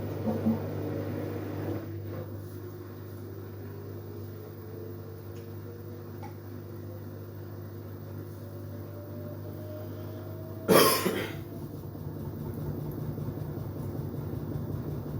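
LG Direct Drive washing machine starting up again: a steady motor hum with a whine that slowly rises in pitch as the drum gathers speed. A single loud knock sounds about eleven seconds in, and the running noise grows louder toward the end.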